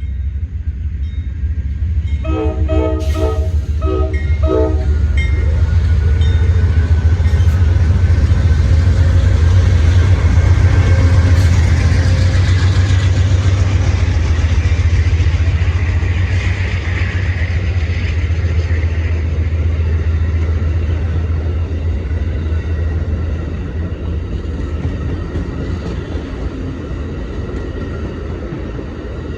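A train horn sounds several short blasts about two seconds in. A train then passes with a steady low rumble that builds to its loudest around the middle and slowly fades.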